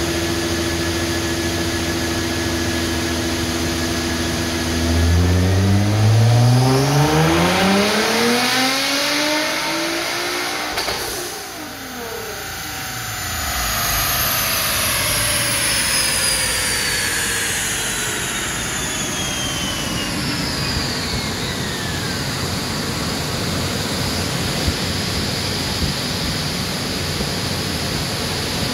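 2018 Nissan GT-R's twin-turbo 3.8-litre V6 making a full-throttle pull on a chassis dyno. The engine runs steady for about five seconds, climbs in pitch for about six seconds, then lifts off. A high whine falls away over several seconds as the car coasts down, and a steady rush of air from the cooling fan takes over near the end.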